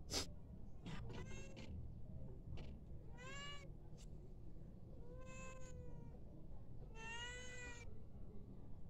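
Domestic cat meowing repeatedly, about four meows spread over several seconds, the one around the middle the longest. A few faint clicks in between.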